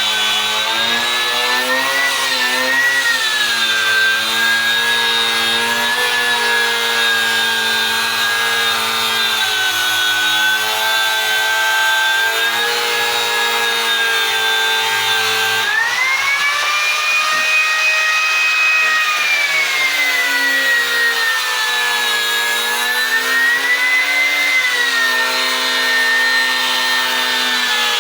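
Handheld electric power tool motor running continuously, its pitch sagging and recovering as it is pressed into and eased off the work. About halfway through it rises to a higher whine for a few seconds, then drops back under load.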